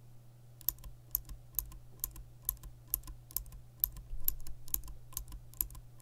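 Cherry MX Green clicky mechanical keyboard switch pressed over and over, giving a sharp click roughly every half second that starts just under a second in.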